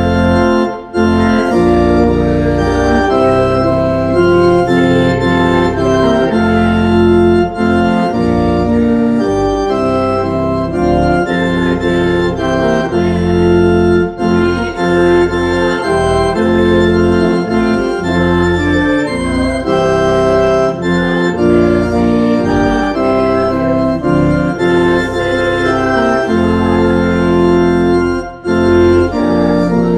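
Church organ playing a hymn in sustained chords that change about every second, with brief breaths between phrases about a second in and near the end.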